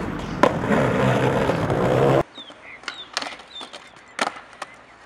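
Skateboard wheels rolling loudly over rough paving, with a sharp clack of the board about half a second in. A little after two seconds the rolling cuts off suddenly, and a quieter stretch follows with several sharp board clacks.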